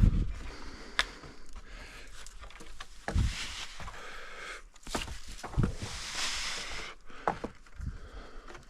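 Irregular knocks, clicks and scraping as a riser is handled and fitted against a fence, with a few dull thumps like footsteps, and two longer spells of rustling or scraping about three and five and a half seconds in.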